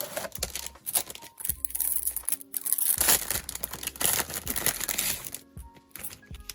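Crinkling and tearing of a small plastic packet being opened by hand, loudest in the middle, with soft background music underneath.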